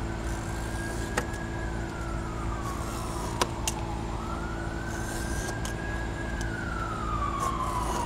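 A siren wailing: its pitch climbs, holds high, then slides slowly down, twice, over a steady low hum.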